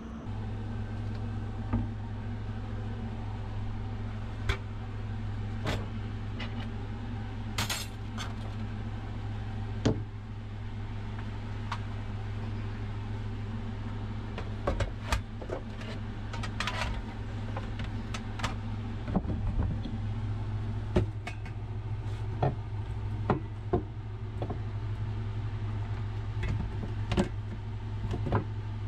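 A steady low mechanical hum, like a running motor, that sets in just after the start, with many short sharp clicks and rattles scattered over it.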